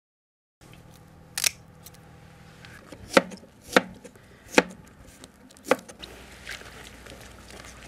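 A single sharp snip of harvesting shears cutting an asparagus spear, then four knife strokes through asparagus onto a cutting board, each a sharp chop with a dull knock, about half a second to a second apart.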